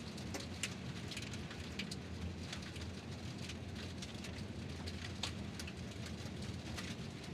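Car tyres rolling over gravel: a steady low rumble with irregular crunching and popping of small stones.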